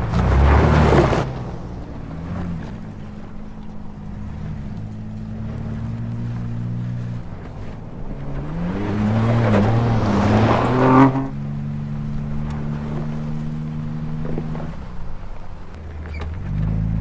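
2022 Ford Bronco Raptor's twin-turbo EcoBoost V6 revving hard on dirt, its pitch swinging up and down at the start and again for a few seconds about halfway through, with rushes of noise as the tyres throw dirt. Between the revs the engine runs at a steadier pitch.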